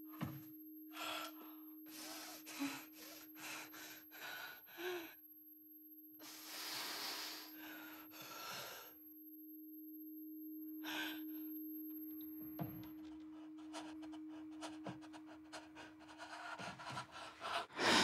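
A person breathing raggedly, with short gasps and longer breaths at uneven intervals, over a steady low tone that stops about two-thirds of the way through. After that, a dense crackle builds up to a loud burst at the very end.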